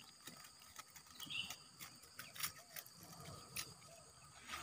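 Faint rustling and light clicks as hands handle a mesh fish trap in the grass, over a faint steady high hum.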